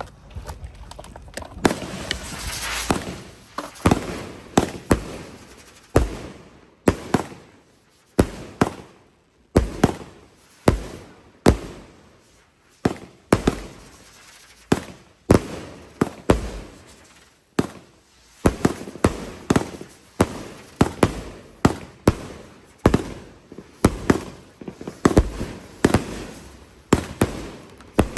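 Multi-shot consumer firework cake going off: a long string of sharp bangs, about one to two a second, each with an echoing tail. A hissing stretch comes about two seconds in, and there is a short lull around eight seconds before the shots resume.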